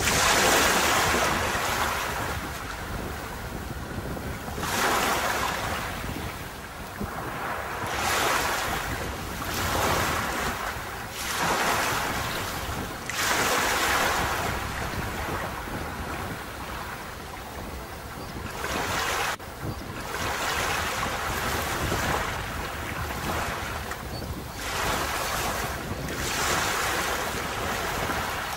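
Sea waves breaking on a beach, one after another every two to four seconds, each a surge of hissing wash that swells and then fades, over a steady low rumble.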